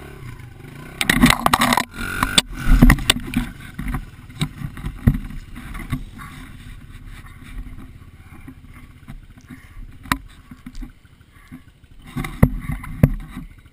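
Dirt bike running on a trail, then crashing into the brush: loud clattering and thrashing with sharp knocks about one to three seconds in. After that the engine keeps running low with scattered knocks, and a few more sharp knocks come near the end.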